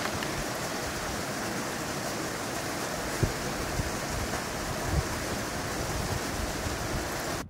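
Backpacking gas canister stove burning under a steel pot: a steady hiss of the lit burner, with a couple of brief knocks about three and five seconds in.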